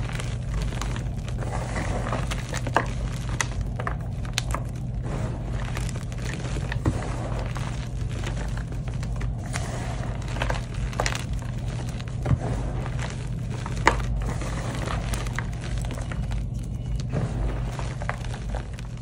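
Dyed gym chalk being squeezed and crumbled by hand in a plastic tub: a continuous soft, crunchy grinding of powder and clumps, with frequent sharp snaps as chunks break, the loudest about three seconds in and again near fourteen seconds.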